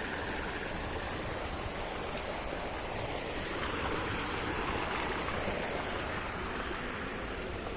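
Small stream running steadily over stones, an even rush of water.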